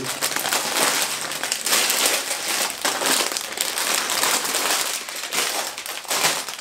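Plastic Lego parts bags crinkling and rustling steadily as they are handled and sorted.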